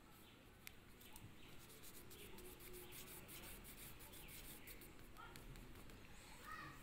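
Faint scratching of a pastel stick rubbed across paper in many quick, short strokes.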